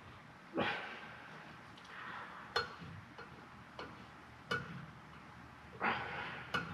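A handful of light, sharp metallic taps and clinks spaced a second or so apart, from tapping and handling a valve spring compressor on a Ford 4.0 V6 cylinder head while trying to free the valve spring retainers, with a brief scrape of metal shortly before the end.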